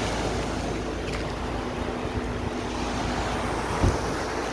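Small waves washing onto a sandy shore with wind on the microphone, over a steady low hum from a boat engine out on the water. A brief low thump comes near the end.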